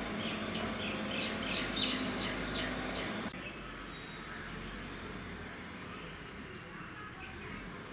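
Birds chirping in a quick run of short, repeated calls, cut off suddenly about three seconds in. After that a quieter steady background follows, with a few faint chirps near the end.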